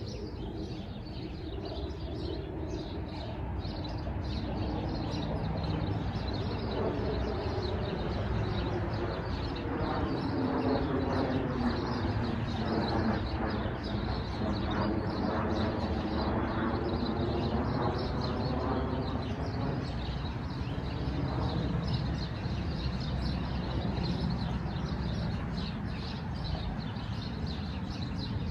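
An engine passing by: a pitched hum that grows louder over several seconds, bends in pitch and fades again, under small birds chirping.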